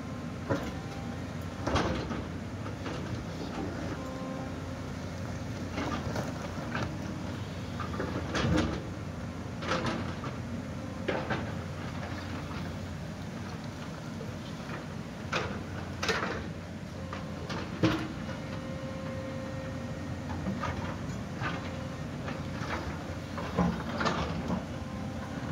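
JCB JS-series tracked excavator's diesel engine running steadily under load while its bucket digs and scrapes into a rocky slope. About a dozen irregular sharp knocks and clatters of stone striking the bucket and falling rock.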